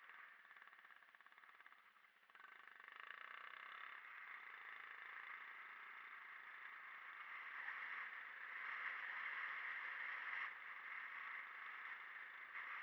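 Yamaha WR125R's single-cylinder four-stroke engine running, heard faintly; it gets louder about two seconds in and drops back briefly near the end.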